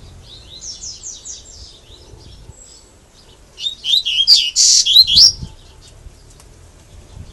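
Double-collared seedeater (coleiro) singing its 'grego' song type: a soft run of quick falling notes in the first two seconds, then a loud phrase of rapid chirps and trills starting about three and a half seconds in and ending about two seconds later.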